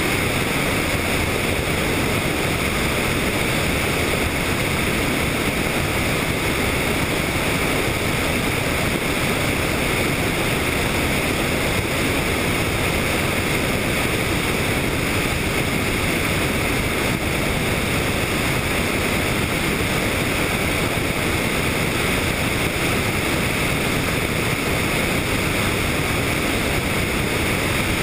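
Helicopter in flight: a steady, unbroken rushing noise of engine, rotor and air.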